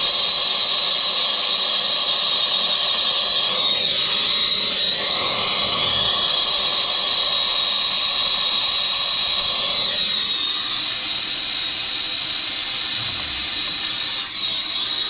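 High-speed electric power tool running steadily with a high whine, its pitch dipping under load about four seconds in and its sound changing again about ten seconds in, as it cuts.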